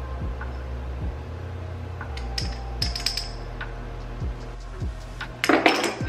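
Small glass spice jars clinking on a countertop, then a kitchen drawer of spice jars pulled open with the jars rattling loudly near the end, over background music with a deep bass beat.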